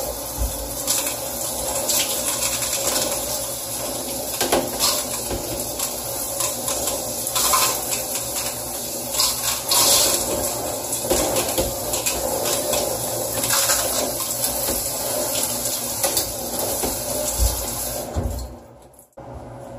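Handheld shower head spraying water onto a small table in a shower stall: a steady hiss of spray with louder splashes as the jet moves over the table. The water shuts off about a second before the end.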